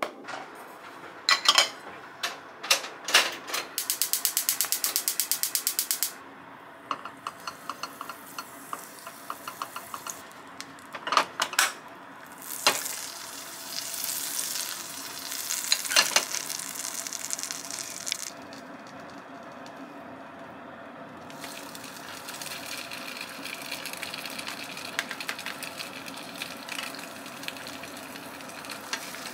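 Kitchenware knocks and clicks, then a gas stove's burner igniter clicking rapidly for about two seconds. After that a frying pan sizzles steadily, growing louder through the second half as egg-soaked baguette slices go in for French toast.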